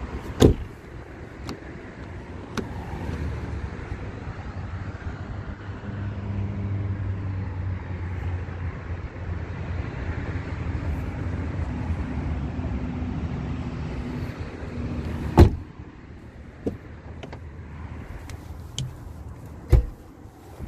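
Clunks and clicks of a Fiat Punto's doors and interior being handled, with a sharp knock at the start and a loud slam about two-thirds of the way through. A steady low hum runs for several seconds in the middle.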